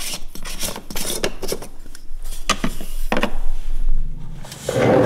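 A Porsche 981 Cayman S's plastic oil filler cap being twisted off and handled: a run of irregular clicks and light rubbing. A louder rustling sound comes near the end.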